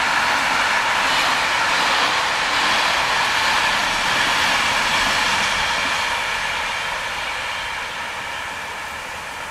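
Freight train of container flat wagons rolling past: a steady rushing rumble of wheels on rail, fading over the last few seconds.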